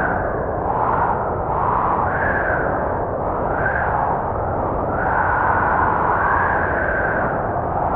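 Howling blizzard wind: a steady rush of noise with a whistling tone that rises and falls in gusts every second or two.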